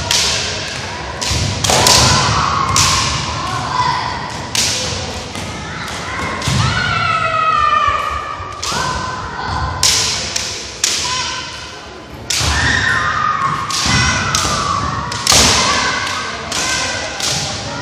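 Kendo sparring: stamping footwork on a wooden gym floor and bamboo shinai strikes, a rapid series of sharp knocks and thuds that echo in the hall, mixed with long, drawn-out kiai shouts from the fencers.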